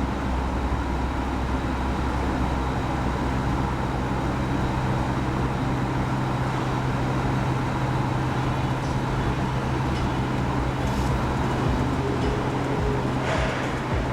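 AS ONE DR228 constant-temperature drying oven running: a steady mechanical hum that starts abruptly and holds even throughout.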